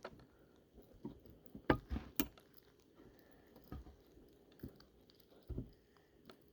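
Faint, scattered clicks and taps of a fishing lure and a small clamp being handled as the lure is clamped in place.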